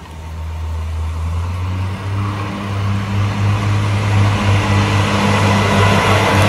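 Alstom AGC regional train approaching and passing on curved track: a steady low diesel engine hum growing louder as it nears, with wheel-on-rail noise building up over it.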